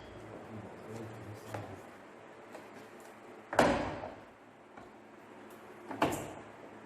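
Work clatter from dismantling a car: faint clicks, then a loud knock with a short ringing tail about halfway through, and a second sharp knock near the end.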